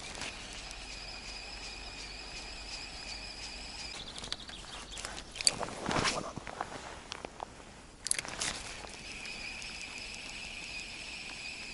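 Spinning reel being wound on a retrieve, a steady high whir that stops about four seconds in. A swish of a cast follows around the middle, then a click about eight seconds in, and the reel's whir starts again.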